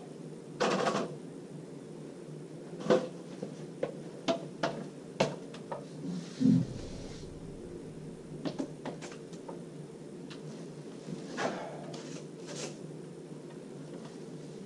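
Steel trowel and hawk clicking and scraping as drywall topping compound is loaded and worked onto plasterboard joints: a string of short light clicks and knocks and two brief scrapes. A dull thump comes about six and a half seconds in, over a steady low hum.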